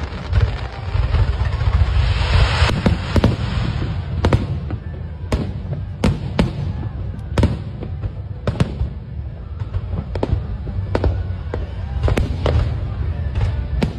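Fireworks going off: a string of sharp bangs at irregular intervals, a second or so apart, with a hissing swell about two seconds in, over a steady low rumble.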